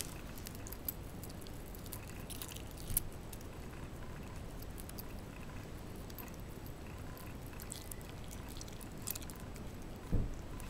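Shiba Inu dogs eating, chewing their food with scattered small clicks and crunches. A louder low thump comes near the end.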